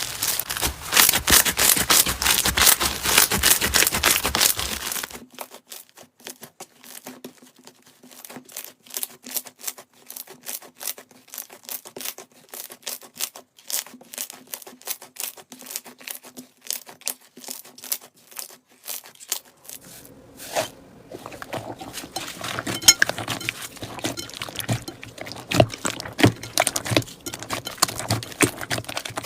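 Slime being squeezed and stretched by hand, giving dense crackling and popping clicks. Loud for the first few seconds, then softer and sparser, then loud again about two-thirds of the way through.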